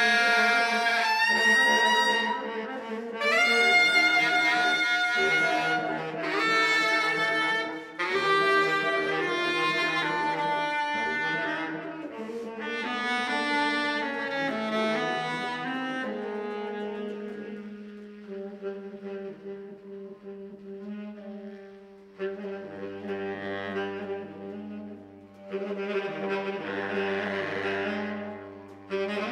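Two baritone saxophones improvising freely together: overlapping held notes and phrases with upward pitch bends, settling about halfway through into lower sustained tones under a low pulsing drone, with breathy, noisy blowing near the end.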